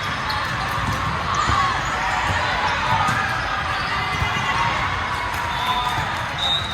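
Gym sound of volleyball play: balls being struck and bouncing on the hard court, with a steady mix of players' voices and shouts around.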